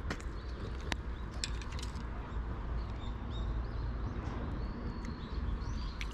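Small birds chirping with short, repeated calls over a steady low rumble, with a few sharp clicks in the first two seconds.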